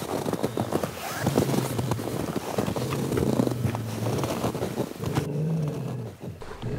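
A captured wolf growling low in long, drawn-out stretches, with snow crunching and rustling as it is handled.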